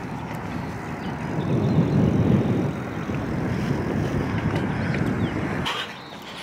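Wind buffeting the microphone of a camera carried on a moving bicycle: a loud low rumble that swells about two seconds in and drops away suddenly near the end.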